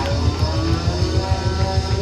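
Rock band music: electric guitar lines with bent notes over a fast, pulsing low end of bass and drums.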